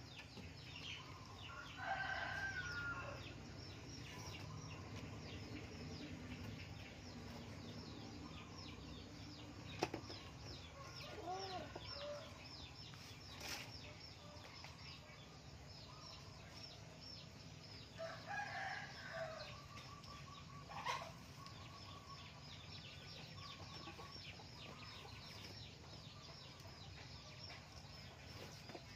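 Faint steady background with two short animal calls, one about 2 seconds in and another about 18 seconds in, and a few sharp clicks scattered between.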